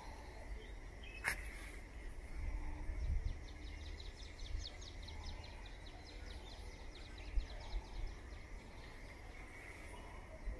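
Outdoor ambience: a steady faint high-pitched hum and a fast, rapidly pulsing chirping trill from about two to seven seconds in, over a low rumble. There is one sharp click about a second in.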